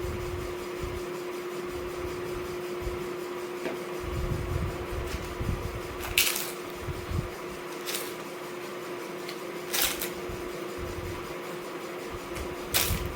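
Close-up eating sounds: chewing, with four short, crisp crunches spread through the stretch, over a steady electrical hum.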